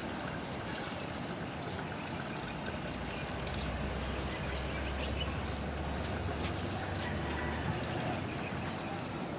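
Fully automatic washing machine taking in water, a steady trickling pour, with a low hum that comes in about three and a half seconds in. The machine is topping up its own water to suit a heavy comforter load.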